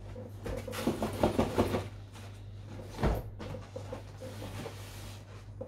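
Cardboard boxes scraping and rustling as a boxed telescope is worked out of its cardboard shipping carton, then a single sharp thump about three seconds in as the box is set down.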